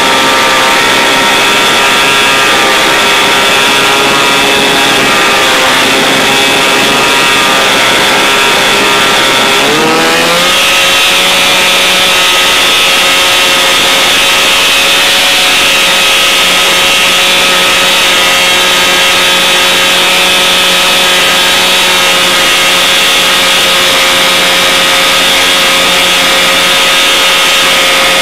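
Light airplane's engine and propeller running steadily in flight, heard from a recorder taped under the wing, with a constant rush of air. About ten seconds in the engine speeds up quickly, then holds at the higher pitch.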